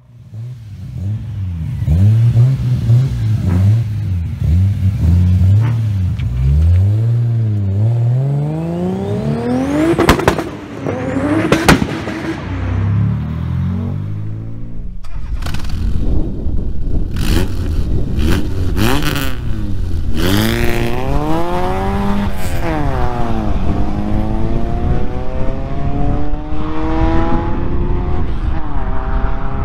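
Car engine breathing through a custom stainless straight-through ('full tube') exhaust, revved hard again and again, its pitch climbing and dropping with each blip. A few sharp cracks come near the middle, followed by longer rising revs.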